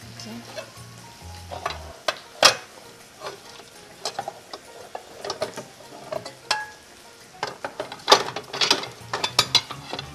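A spatula stirring and scraping a sauce in a frying pan on the hob, with a low sizzle underneath and irregular sharp clicks and knocks of utensils, busiest near the end.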